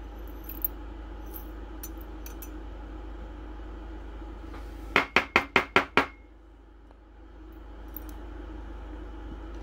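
Glass vial tapped six times in quick succession, about five taps a second, to knock fine gold flakes into a small metal weighing pan. A few faint glassy clinks come earlier.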